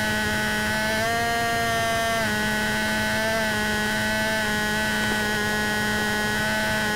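Multiplex EasyStar's electric pusher motor (a Turnigy 2835 2700kv brushless) and propeller running in flight, a steady pitched whine. About a second in the motor speeds up and the pitch steps up. It drops back a little after two seconds.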